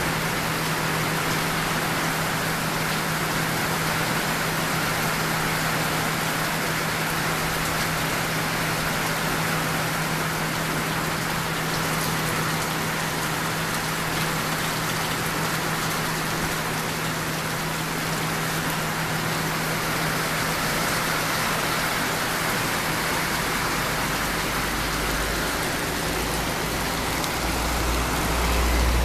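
Heavy rain pouring down steadily on pavement and standing water, with a steady low hum underneath and a low rumble building near the end.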